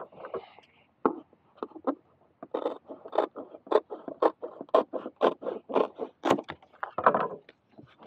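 Short scraping strokes, a few at first, then a quick even series of about four a second from about two and a half seconds in: hand work on a hard pad surface while velcro is fitted.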